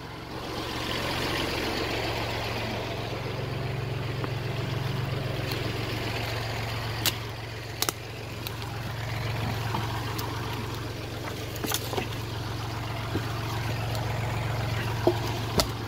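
Kubota L3901 tractor's three-cylinder diesel engine running steadily, with a few short, sharp knocks, the loudest near the end.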